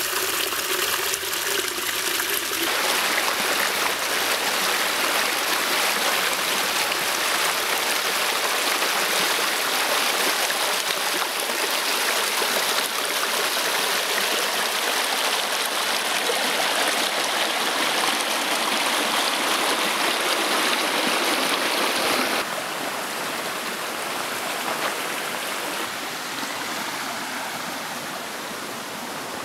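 River water rushing over rocks, with a small cascade pouring down, as a steady loud rush. It drops abruptly to a quieter rush about 22 seconds in.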